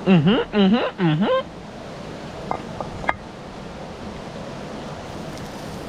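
Three short wavering vocal calls in the first second and a half, each dipping then rising in pitch, over the steady rush of river water. A few faint clicks come near the middle.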